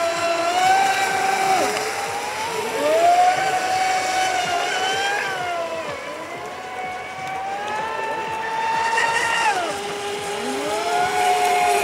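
Radio-controlled offshore racing boat's motor running flat out, a high-pitched note that drops and climbs again as the throttle is eased and reopened, most clearly about two, six and ten seconds in.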